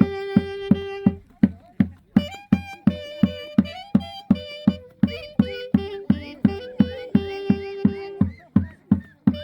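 Andean festival band music: a drum struck steadily about three times a second under a high melody line of long held notes and short slides.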